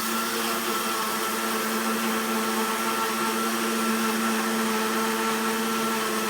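Countertop blender running steadily at a constant speed, mixing a liquid batter of eggs, oil, milk and salt.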